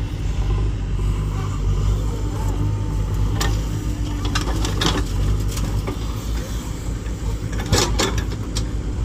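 JCB 3DX backhoe loader's diesel engine running steadily under hydraulic load while it digs soil and dumps it into a tractor trolley, with a few sharp knocks and clatters from the bucket and the dumped earth, the loudest near the end.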